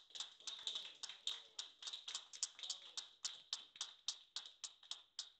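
A small audience clapping: a few people's hand claps at about four or five a second, with faint voices underneath.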